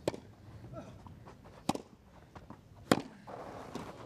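Tennis balls struck hard by rackets three times in a rally, about a second and a half apart, the last hit the loudest. Crowd noise starts to swell near the end.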